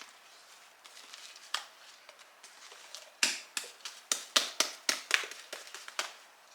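Fluffy slime being squeezed and pulled in the hands, giving a single sharp pop and then, about halfway through, a quick run of sharp pops and clicks, several a second.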